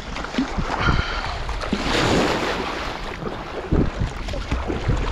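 Wind buffeting the microphone over choppy lake water that slaps and splashes against a sea kayak's hull, with uneven low thumps from the gusts.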